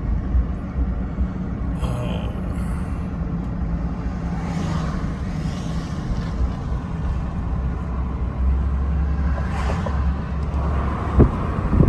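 Road noise inside a moving car: a steady low rumble of engine and tyres, swelling twice as traffic goes by, with a few sharp clicks near the end.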